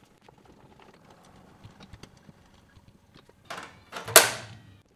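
Faint clicks and taps of a table saw's tilted blade being handled and turned by hand to check that it clears the dust box, then about four seconds in a short, loud rush of scraping noise that fades quickly.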